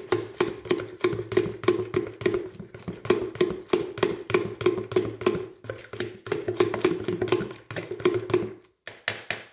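Table knife beating sourdough starter into a little water in a clear plastic tub, tapping and clicking against the plastic about three or four times a second to break the starter down. The strokes stop shortly before the end.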